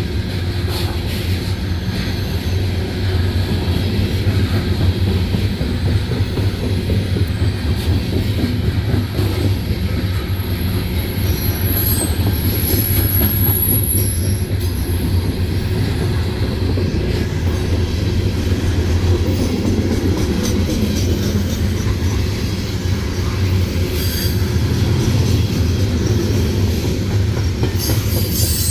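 Freight train cars rolling past in a steady low rumble, with scattered clicks of wheels over rail joints and a thin, high wheel squeal about twelve seconds in.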